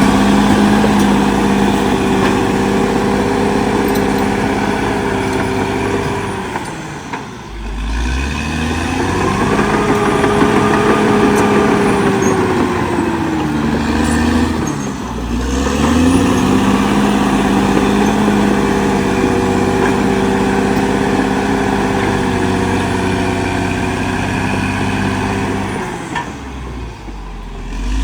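Caterpillar D6R XL bulldozer's diesel engine running hard. Its pitch and loudness drop briefly three times, then climb back.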